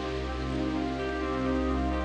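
Ambient space music from synthesizers: layered sustained drone tones holding a chord over a steady low bass drone, with a soft hiss that fades in the first second.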